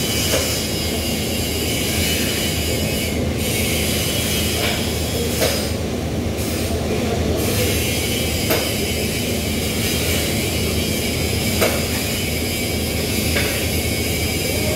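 Steady workshop machinery noise: a low hum under an even rushing hiss, with a few short sharp clicks.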